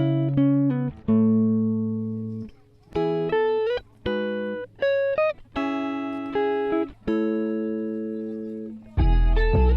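Background music: a plucked guitar-like melody of single notes and short runs, each note fading away. Near the end a deep low sound comes in underneath and the music grows fuller and louder.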